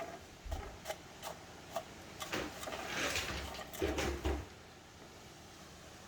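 Jobon jet torch lighter: a run of sharp clicks, then a hiss of gas lasting about a second around the middle. Low gusts of wind buffet the microphone twice.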